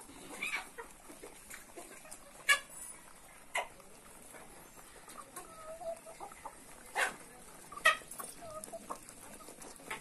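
A flock of Kadaknath chickens clucking softly as they peck and feed. About five sharp, very short sounds stand out, the loudest about a quarter of the way in and again about four-fifths through.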